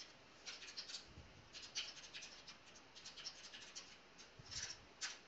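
Faint, irregular clicking of computer keyboard keys as code is typed and edited.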